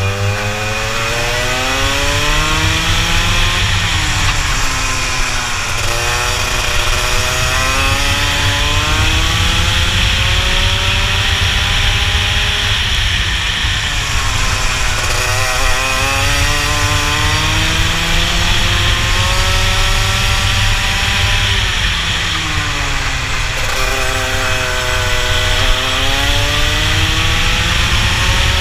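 Rotax two-stroke kart engine at racing speed, its pitch climbing steadily along each straight and dropping sharply into the corners, several times over. A low buffeting of wind on the onboard microphone runs under it.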